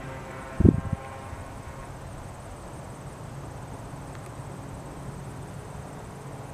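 Distant Beechcraft 58P Baron's twin piston engines running as a steady low drone. There is a wind thump on the microphone about half a second in.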